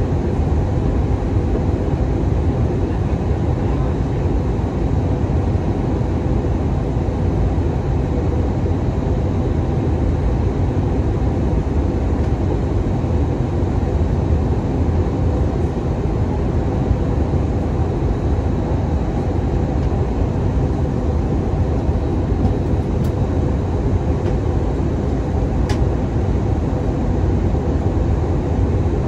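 Steady cabin noise inside an Airbus A319-100 on approach, heard from a seat over the wing: the low rumble of its CFM56 engines mixed with airflow over the fuselage, with a faint steady hum.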